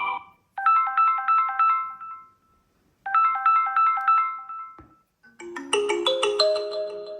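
Samsung Galaxy A17 preset ringtones. A short, bright melody of quick plinking notes plays twice. After a brief click about five seconds in, a different, lower and fuller ringtone begins.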